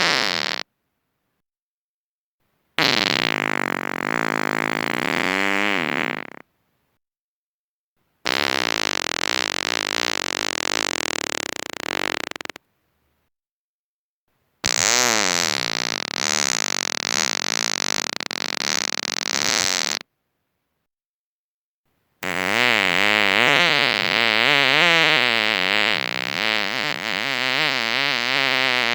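A string of long human farts, each lasting several seconds with a wavering, rising and falling pitch, separated by dead silence: the tail of one at the start, then four more, the last still going at the end.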